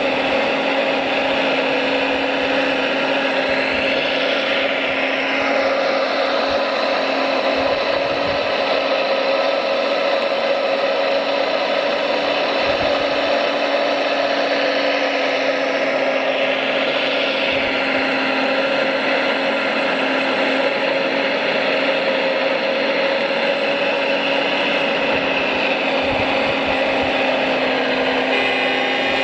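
Electric motors and gearboxes of radio-controlled construction models whining steadily, the pitch swelling up and back down twice as a motor speeds up and slows.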